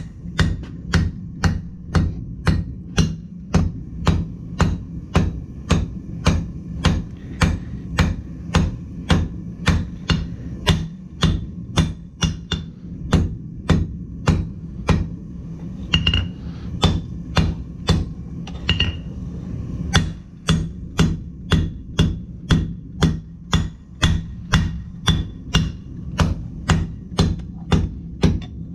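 Hand hammer striking hot steel on an anvil in a steady forging rhythm, about two blows a second, with a brief lighter spell midway. A steady low hum sits underneath.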